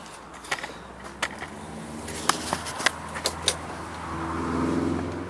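Stihl BR700 backpack blower's two-stroke engine running at a steady low hum, swelling briefly near the end, with a few sharp clicks and knocks of handling over it.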